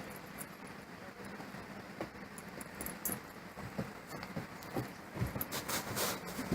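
Faint, scattered clicks, rustles and light jingling of dogs shifting about, growing a little busier near the end.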